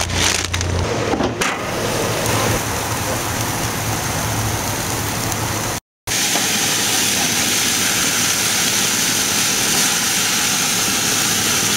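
A few seconds of noisy background with a couple of sharp crinkles, then a sudden cut to hamburger patties sizzling on a gas grill, a steady hiss.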